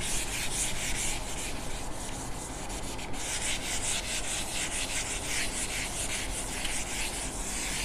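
Whiteboard eraser wiping a whiteboard in repeated quick back-and-forth strokes, a dry rubbing hiss.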